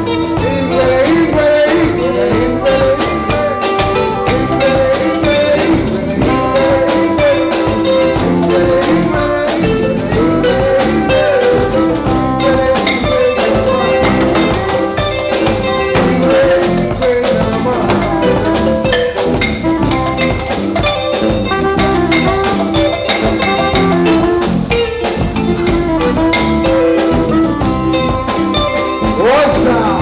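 Live band playing African music, an electric bass under a continuous held melody line.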